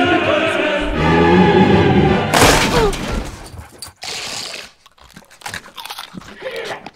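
Dramatic music, then a loud crash of a glass door shattering about two and a half seconds in. Scattered small clatters follow, with a brief swish about four seconds in.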